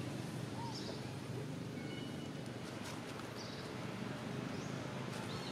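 Outdoor ambience: a steady low background rumble, with a short high chirp, likely a bird, repeating every second or two.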